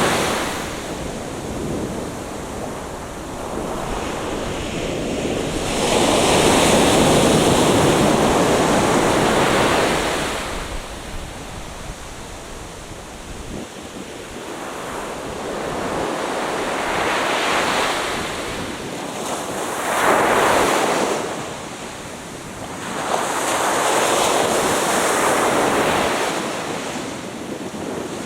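Atlantic Ocean surf breaking on the beach, a steady wash that swells and fades as each wave comes in, about five times, the loudest a little after the start.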